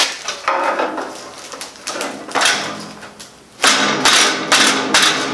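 A sharp knock as a plastic foot is pounded onto the leg of a steel grill frame, then several scraping bursts and a couple of thuds as the frame is tipped and shifted on cardboard.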